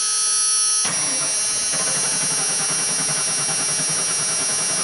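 Starter motor whining and cranking a 5.8L Windsor V8 with the throttle held to the floor, so the engine turns over steadily without firing. From about a second in, the cranking has an even, rough beat, in which one cylinder, number 5, has low compression.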